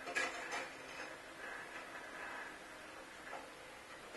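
Clockwork movement of an 1886 mechanical living picture running, a faint steady whirr with ticks and a couple of sharper clicks near the start as it works the fishing rods.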